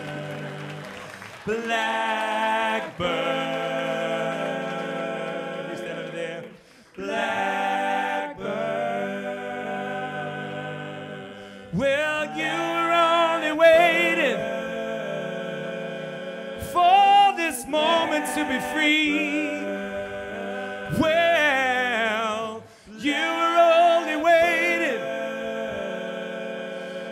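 Layered male a cappella singing built from live voice loops: held stacked chords with a lead voice singing wavering phrases over them, dropping out briefly twice.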